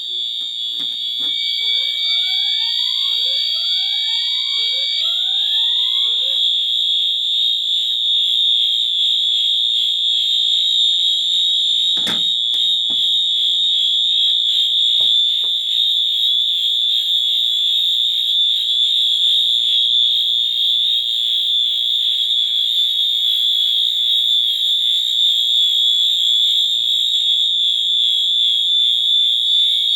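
Fire alarm sounding a loud, continuous high-pitched tone. Fainter rising sweeps overlap it in the first six seconds or so, and a single click comes about twelve seconds in.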